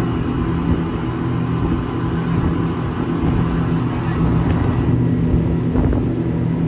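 Passenger speedboat running at speed, its engines a steady drone heard from inside the cabin, over a rushing hiss of water and wind.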